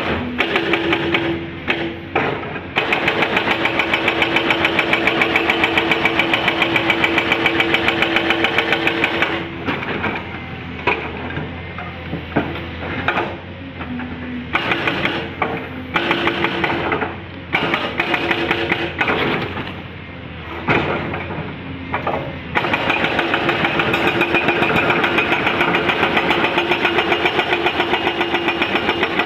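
Hydraulic breaker on a Volvo EC330BLC excavator hammering rock in a rapid, even stream of blows. Through the middle it stops and starts in short bursts, then runs steadily again near the end. The excavator's engine runs steadily underneath.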